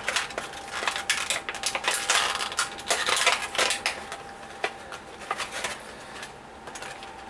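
Stiff plastic toy blister packaging crinkling and clicking as a Bakugan figure is pried out of it. The clicks come thick for the first few seconds, then thin out.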